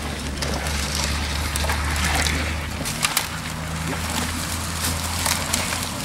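Dry leaf litter crackling and crunching under footsteps and the wheels of a pushed ground-penetrating radar cart, many small crackles over a steady low hum.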